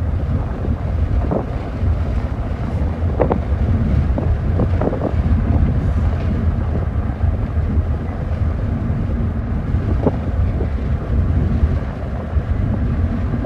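Steady low rumble of a moving car heard from inside the cabin, with a few brief short sounds over it about three, five and ten seconds in.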